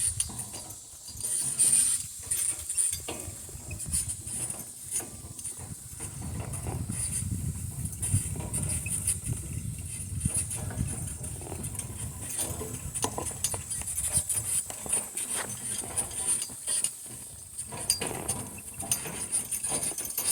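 Four-wheeled donkey cart rolling over farm ground, its wheels, frame and harness rattling and clicking irregularly over a low rumble, with a steady high insect buzz.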